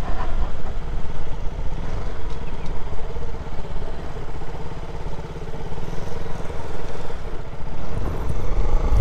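KTM Duke 200 single-cylinder motorcycle engine running while riding, with wind rushing over the helmet-mounted mic; the engine eases off about halfway and then picks up again.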